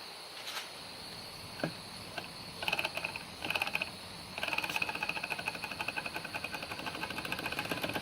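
Small model Stirling engine, heated by a blowtorch, starting to run after its displacer was re-fixed to the rod: a couple of faint clicks, then two short bursts of fast, even mechanical chatter about three seconds in, and from about four and a half seconds it keeps running with a steady rapid clatter.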